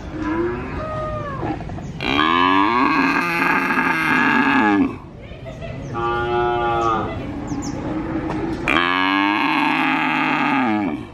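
A calf mooing repeatedly, four calls in a row. The second and last calls are long and loud, the first is a weaker call that wavers in pitch, and the third is shorter.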